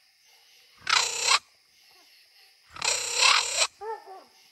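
Coonhound barking treed at the base of the tree: one loud bark about a second in, then two more close together around three seconds, with fainter short cries near the end.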